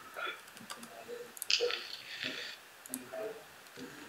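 Scattered computer mouse clicks and key taps while drafting, with a short breathy hiss about one and a half seconds in.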